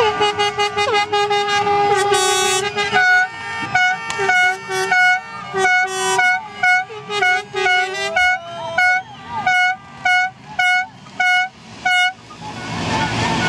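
Handheld plastic fan horn blown by spectators: a long held note, then a run of short toots, about two a second, some on a higher pitch, stopping shortly before the end.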